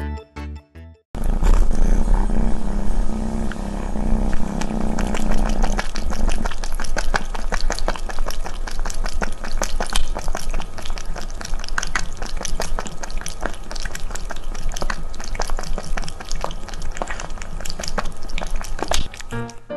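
A cat lapping water from a drinking glass, close-miked: a fast run of wet, clicky laps, several a second.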